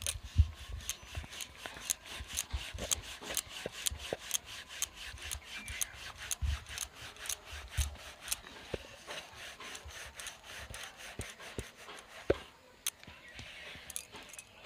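Wooden rolling pin rolling dough back and forth on a floured round wooden board, a fast run of rubbing strokes at about three a second that thins out after about nine seconds, with a couple of sharper knocks near the end.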